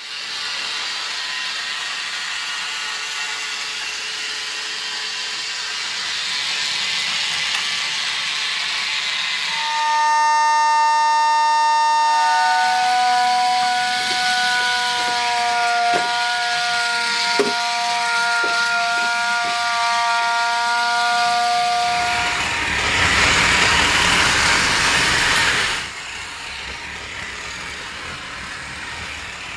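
Toy steam-train sound effects: a steady hiss, then from about ten seconds a long held whistle-like tone that steps down in pitch and runs for about ten seconds, with a few sharp clicks. Near the end comes a loud burst of steam hiss that cuts off suddenly.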